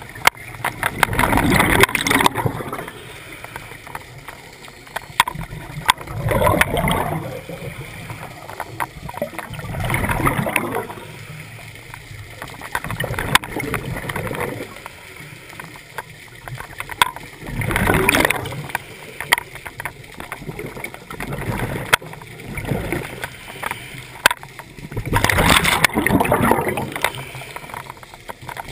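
A scuba diver's regulator breathing underwater: a burst of exhaled bubbles gurgling past every four to seven seconds, with quieter water noise between.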